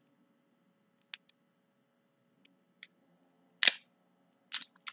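Scattered sharp plastic clicks and crackles as the protective plastic film is picked off a new lipstick tube. The loudest crackle comes a little past halfway, with a quick cluster of them near the end.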